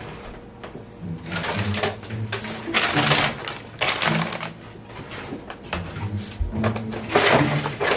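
Rustling and clatter of frozen food packages being handled, in a run of short, irregular bursts.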